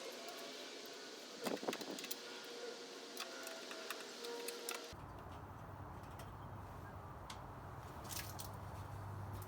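Scattered light metallic clicks and clinks of hand tools and loose hardware being handled while taking apart a console stereo, over a steady background hiss. About halfway through, the background changes abruptly to a low hum.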